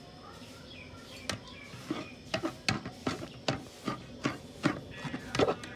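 Metal ladle knocking and clinking against the side of an aluminium cooking pot while the liquid in it is stirred: a quick run of knocks, about two or three a second, starting about a second in.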